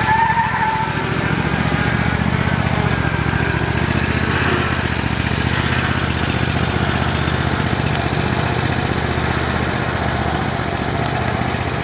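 Gravely Pro-Turn 472 zero-turn mower's 31 hp Kawasaki V-twin engine running steadily as the mower drives along.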